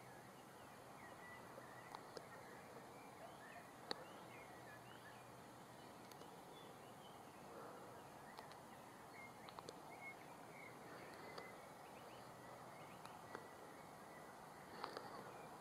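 Faint outdoor ambience with distant birds chirping and warbling on and off, over a low steady hiss, broken by a few sharp single clicks.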